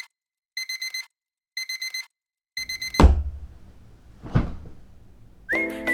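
Digital alarm clock beeping in quick bursts of four or five high beeps, one burst each second, cut off by a heavy thump about three seconds in. A second thump follows about a second and a half later, and music with a whistled melody over chords starts near the end.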